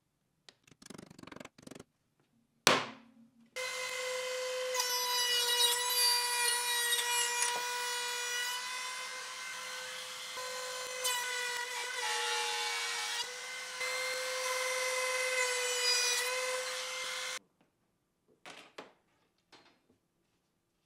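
A few light hammer taps and a sharp knock, then a stationary belt sander runs for about fourteen seconds, a steady motor tone with the grinding of wood as a plywood panel's edge is sanded. It cuts off suddenly.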